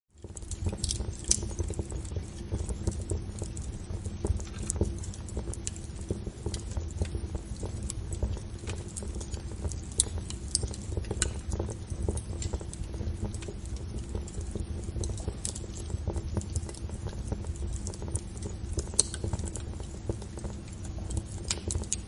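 Wood campfire burning, crackling with a constant scatter of small pops and a few louder pops, over a steady low rumble.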